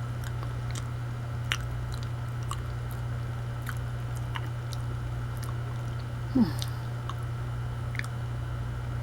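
A person chewing a mouthful of banana, with small wet mouth clicks scattered throughout. About six and a half seconds in there is a brief falling vocal sound, like a short hum of enjoyment.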